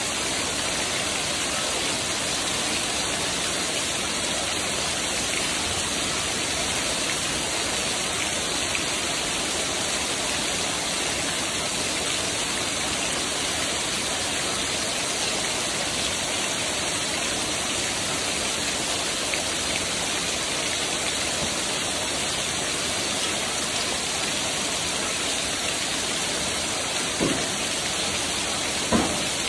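Heavy rain falling steadily onto paved ground, with water pouring off the roof eaves. Two short, louder knocks stand out near the end.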